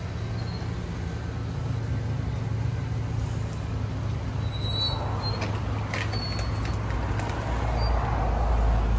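Class C motorhome's engine idling: a steady low hum that grows slightly louder near the end.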